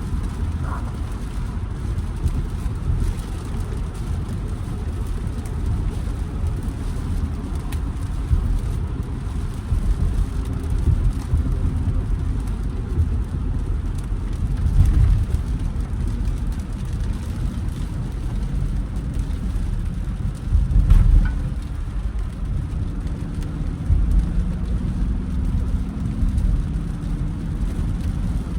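A Jeep Grand Cherokee's Hemi V8 driving in heavy rain: a steady low engine and road rumble with the hiss of rain and wet road underneath. It swells louder twice, about halfway through and about three-quarters of the way in.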